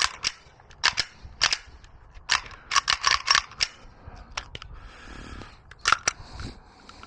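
Pistol shots at a shooting range: a string of about a dozen sharp reports at uneven spacing, some close together and others with gaps of up to a second.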